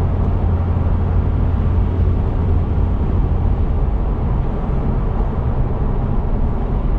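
Road noise inside the cab of a supercharged 2002 Toyota Tacoma held at a steady 45 mph: a steady low rumble of engine, tyres and road, with a low drone that fades about two and a half seconds in. The floor, back wall and roof are lined with sound deadening, and the cabin reads about 68 dB.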